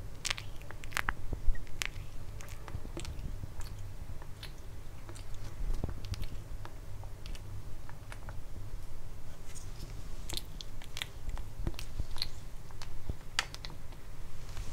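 Kitten eating pork from a plate: a run of small, irregular wet clicks and smacks as it chews and licks.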